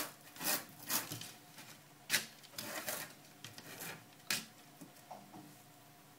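Knife chopping fresh parsley on a plastic cutting board: short sharp chops, about two a second at first, thinning out and stopping about five seconds in.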